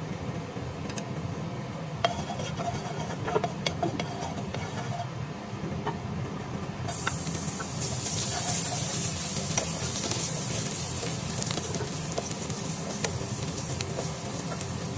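Minced ginger frying in oil in a non-stick pot and stirred with a wooden spatula, with scattered taps and scrapes of the spatula. About halfway through a dense sizzle comes in suddenly and keeps on, over a steady low hum.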